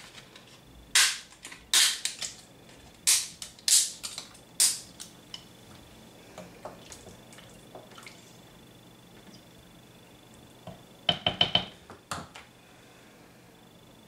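Dry lasagne sheets being snapped by hand into small pieces, about six sharp cracks over the first five seconds. About eleven seconds in comes a quick run of clicks and clinks.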